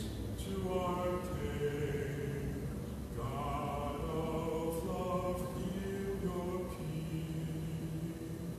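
A man singing a slow, chant-like sacred song, moving between long held notes.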